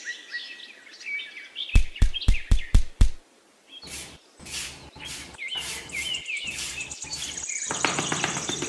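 Birds chirping steadily, with a quick run of six sharp knocks about two seconds in, then a series of short scraping strokes of a small metal hand trowel pushing through fine sand. Music begins near the end.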